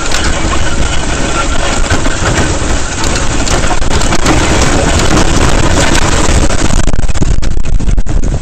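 Steady loud rushing noise of wind buffeting the microphone while sleds are towed fast over snow, with a towing vehicle's engine running underneath.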